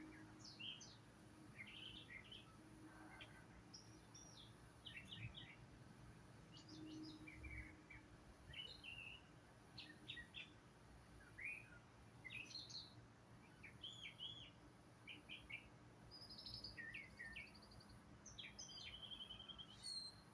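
Wild birds chirping and calling faintly, short high notes scattered throughout, with a quick trill near the end.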